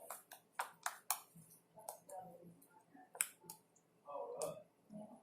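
Homemade fluffy slime being squeezed and stretched by hand, giving off irregular sharp clicks and pops.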